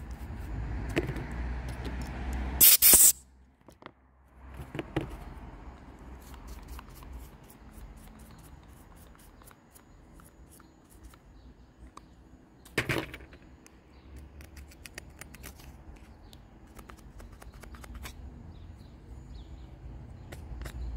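A paintbrush sweeping dirt off the plastic spring cover of a chainsaw's recoil starter, then small clicks and scrapes of a screwdriver tip on the part. There is a loud short noise about three seconds in and a shorter one near thirteen seconds.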